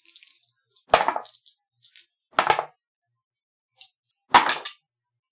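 Dice thrown into felt-lined dice trays for a combat roll, clattering in three short bursts, the last the loudest.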